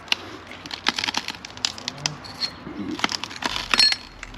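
Footsteps crunching over broken glass shards and debris, with irregular sharp cracks. Twice, near the middle and near the end, a glass piece clinks with a brief ring.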